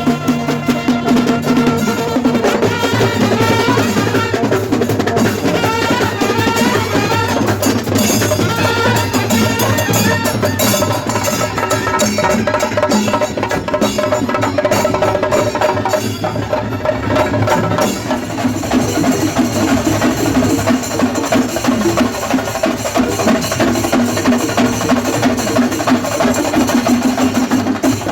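Loud percussion-led music: rapid, dense drumming with pitched melody lines over it.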